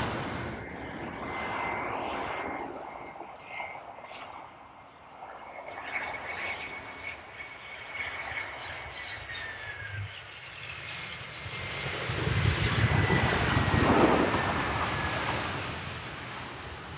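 Landing airliner passing close by: its engine whine and rumble build up, peak about three-quarters of the way through, then fade, with the whine falling slightly in pitch as it goes past.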